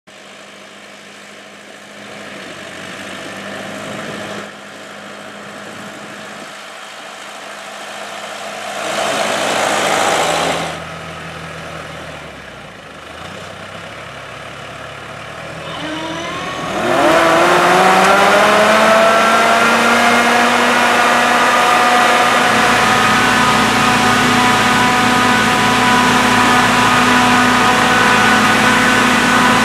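John Deere 5820 tractor's diesel engine running with a Myers airblast sprayer in tow. About halfway through, a whine climbs in pitch as the engine and the sprayer fan speed up to working speed, then holds steady and loud while the sprayer blows spray into the hops.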